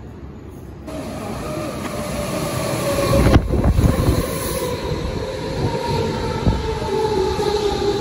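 Berlin S-Bahn electric train moving slowly along the platform, its motor whine falling slowly in pitch over a rolling rumble as it brakes. A sharp knock comes about three and a half seconds in.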